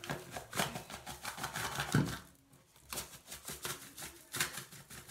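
A cylindrical salt canister shaken and turned in the hands, the salt inside rattling in two runs of quick clicks, with a louder knock about two seconds in. The salt isn't pouring because the canister's spout is barely open.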